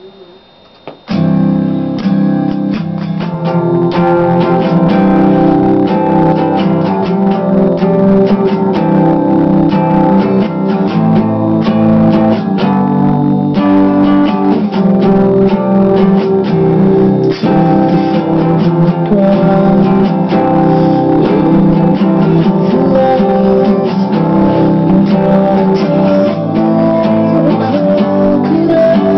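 Solo steel-string acoustic guitar played continuously, starting about a second in, with frequent picked and strummed note attacks over ringing chords.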